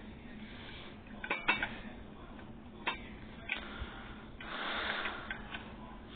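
Ceiling fan parts being handled: a few sharp clinks and knocks, and a short rustle about four and a half seconds in.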